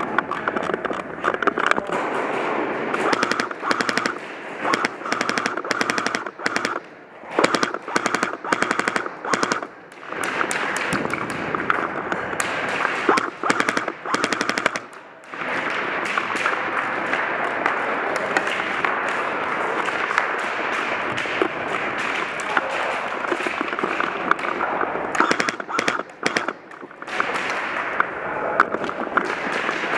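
Airsoft guns firing in rapid full-auto strings of shots, one string after another, with brief pauses between them.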